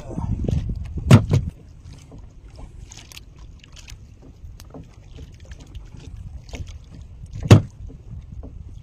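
Hard thuds on the wooden deck planks of a small fishing boat as freshly caught fish are dropped in: two close together about a second in, and one more near the end, with lighter knocks between. A low rumble runs through the first second and a half.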